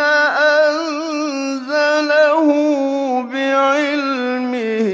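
A man reciting the Quran in a melodic, drawn-out style, holding long ornamented notes.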